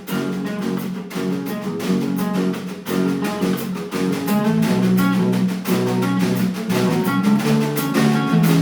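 Live rock band playing an instrumental break without vocals, led by guitar, with sharp hits coming regularly throughout.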